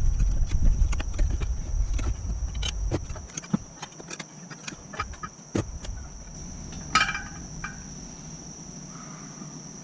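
Scattered clicks and knocks of tire irons and hands working a dirt bike tire off its wheel rim, with a low rumble over the first three seconds. Crickets chirr steadily in the background, and one brief higher-pitched sound stands out about seven seconds in.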